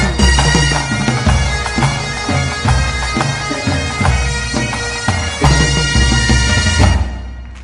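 Breton bagad (pipe band) playing: bagpipes over a steady drone, with a rhythmic low drum beat. The tune ends and dies away about seven seconds in.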